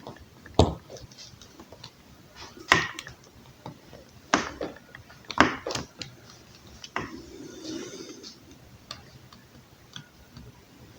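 Irregular sharp clicks and knocks of a hand tool working at a plastic extension-cord plug to pry it apart, with a short scrape a little past the middle.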